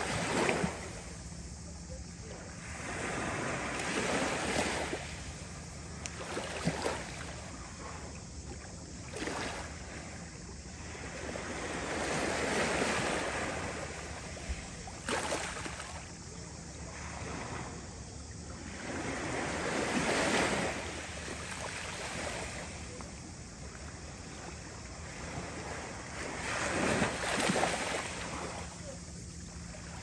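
Small waves of a calm Mediterranean sea lapping onto a pebble and sand shore. Each wash swells and fades every few seconds, with a few brief sharper splashes where the water runs over the stones.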